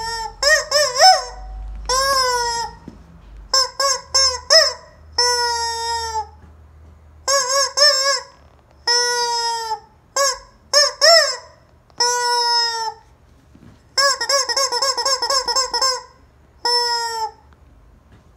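Squeaky rubber chicken toy being squeezed again and again, giving loud honking squawks of up to about a second each, with a quick run of short squeaks a little after halfway.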